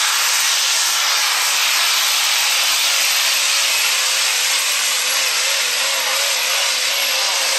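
Super stock diesel 4x4 pickup truck's turbocharged engine at full power under load, pulling the sled. A loud, steady howl with a wavering pitch and a high steady whistle over it.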